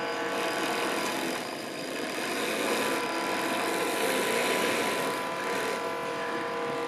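A 1/16-scale model excavator's 3D-printed hydraulic pump running with a steady whine, a rougher, noisier sound swelling from about two to five seconds in as the boom and bucket move.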